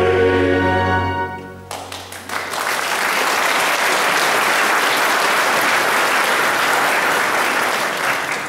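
A male voice choir with orchestra holds a final chord that dies away about a second and a half in. Audience applause follows and stays steady.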